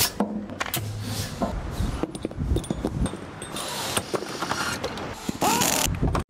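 Factory machine sounds in quick succession: clanks and clicks of metal valve parts being handled and pressed in machine tooling. Near the end, finished metal valves clatter into a plastic crate.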